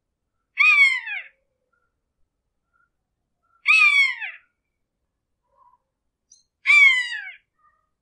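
Hawk screeching three times, about three seconds apart: each a short, harsh call that falls in pitch.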